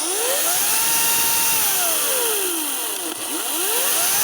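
Cordless lithium-ion battery chainsaw's electric motor and chain running free with no cutting: a whine that climbs as the trigger is squeezed, holds, dips about two to three seconds in as the trigger eases off, then climbs again near the end.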